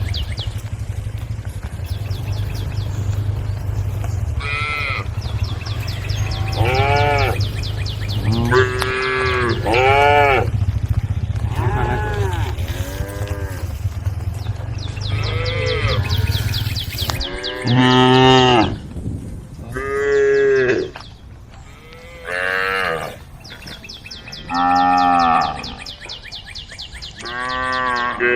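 Cows mooing repeatedly, about a dozen separate calls, each rising and falling in pitch. A steady low hum runs underneath and stops about two-thirds of the way in.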